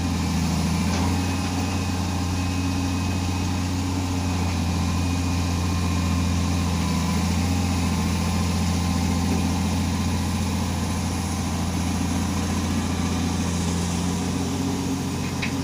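Heavy earthmoving machine's diesel engine running steadily at a low, even pitch, with a brief click shortly before the end.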